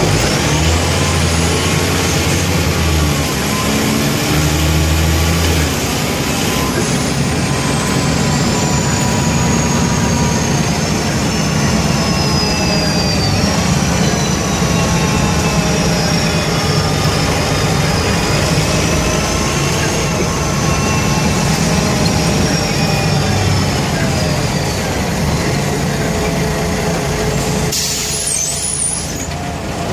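Mercedes-Benz O345K bus's turbocharged OM447hLA straight-six diesel running under way with a burst exhaust, a steady low drone under a high whine that slowly rises and falls.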